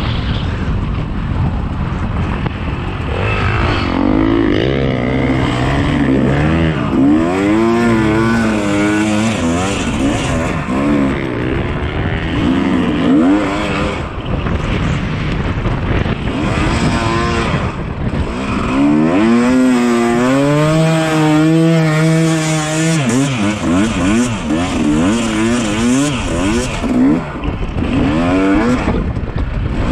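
Dirt bike engine being ridden hard on an enduro trail, its pitch rising and falling over and over with the throttle and gear changes.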